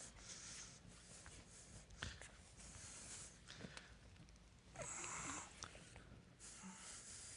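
Near silence: faint room tone with a few soft hissing noises, the clearest about five seconds in, and a soft click about two seconds in.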